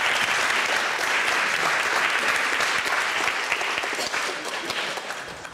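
Audience applauding, many people clapping at once; the applause dies down near the end.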